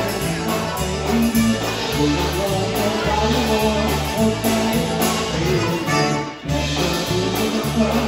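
Live polka band playing a polka, with accordion, concertina, electric guitar and drums over a steady two-beat oom-pah bass. The music drops out for an instant about six seconds in.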